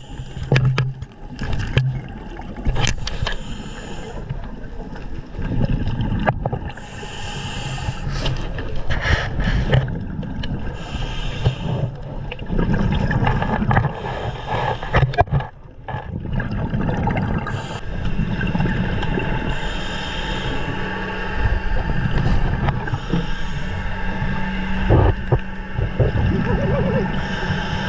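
Scuba diver breathing through a regulator underwater: rushes of exhaled bubbles swelling and fading every few seconds, with scattered knocks and clicks. A steady low hum joins about two-thirds of the way through.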